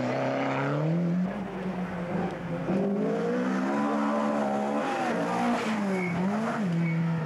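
Rally car engines at full throttle on a tarmac stage: a Ford Escort RS Cosworth revving as it pulls away, then a Mark 3 Ford Escort approaching and passing close. The engine pitch climbs and drops again and again as the drivers lift and change gear.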